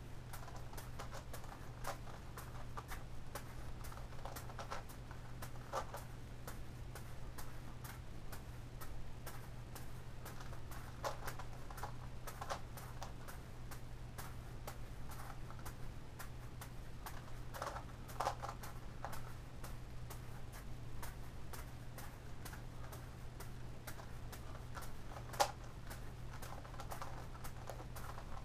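Irregular plastic clicking and clacking of a Gigaminx puzzle's layers being turned by hand, mixed with soft taps of a juggling ball being caught, with one sharper click near the end. A steady low hum runs underneath.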